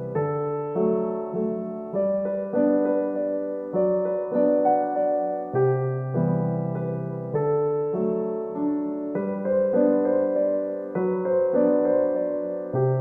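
Instrumental background music: gentle electric piano playing a steady chord pattern, a new note or chord about every half second.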